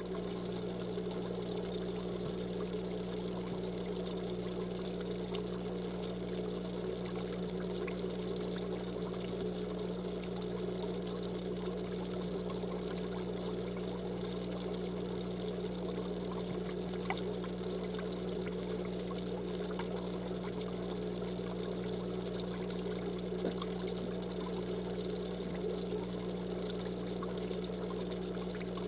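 Aquarium filter running: a steady trickle of falling water over a constant low hum.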